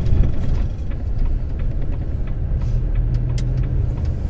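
Lorry's diesel engine and rolling noise as it drives slowly, a steady low rumble.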